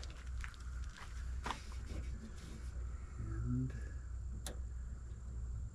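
A few scattered sharp clicks and taps of hand work on the plastic wiring connector at a pickup's tailgate backup camera, as its latch is pried up, over a steady low hum.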